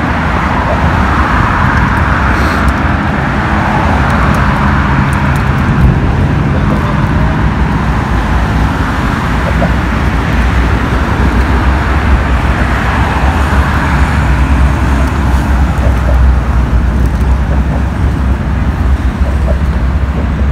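Steady road traffic: a continuous rumble and hiss of passing cars' engines and tyres, with a strong deep low rumble throughout.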